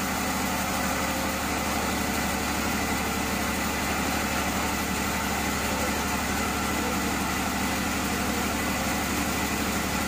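Sawmill machinery running with a steady, even motor hum, with no knocks or breaks.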